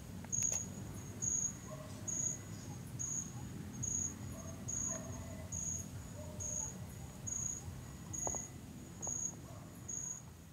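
An insect chirping at night: a short, high-pitched chirp repeated evenly a little faster than once a second, over a low steady rumble.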